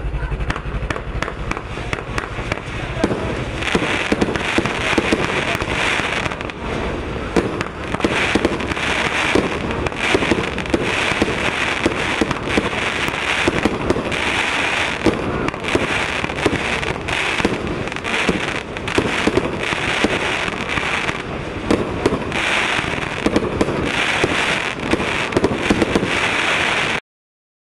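Silver Lion to Happy Stars consumer firework burning: a continuous dense stream of rapid sharp pops over a steady hiss, cutting off abruptly near the end.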